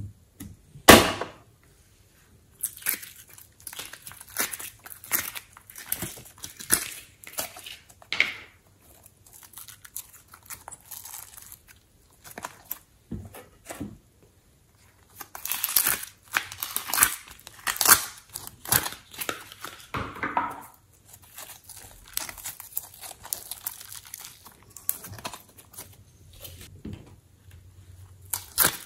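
Soft slime being squished, stretched and folded by hand in a glass bowl, with irregular sticky crackling and popping as it pulls apart and presses together.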